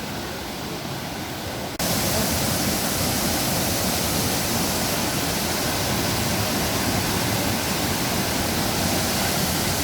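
Waterfall: the steady rush of falling water, with no other sound standing out. It jumps louder all at once about two seconds in, then holds steady.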